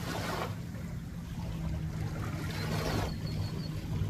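Feet splashing as they wade through shallow lake water, one splash at the start and another near three seconds in. Wind rumbles on the microphone, and a steady low hum runs underneath.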